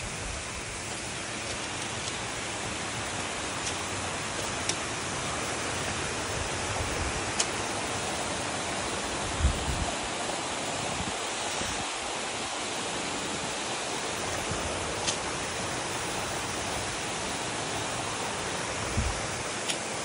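Tall waterfall spilling down a rock cliff: a steady hiss of falling water. A couple of brief low thumps stand out, one about halfway and one near the end.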